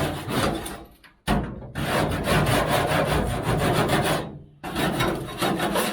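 Hand scraper dragged in quick repeated strokes, scraping old insulation and sound-deadening material off the walls of a panel van, in three bursts with short pauses about a second in and about four and a half seconds in.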